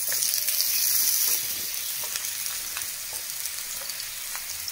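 Washed ridge gourd pieces sizzling in hot mustard oil as they are dropped by hand into a kadai, the frying hiss louder for the first second or so and then settling, with a few soft ticks of pieces landing.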